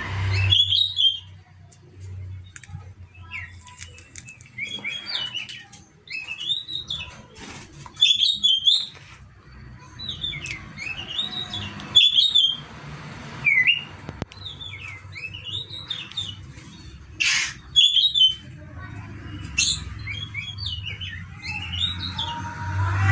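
Oriental magpie-robin giving short, repeated chirping calls and phrases, with a few sharp clicks, over a low hum.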